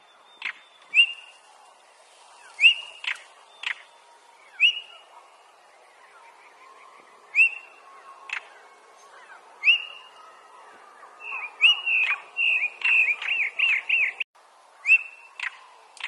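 European stonechat calling: short rising whistles alternating with hard clicking notes, then a fast run of short notes near the end, followed by one more whistle.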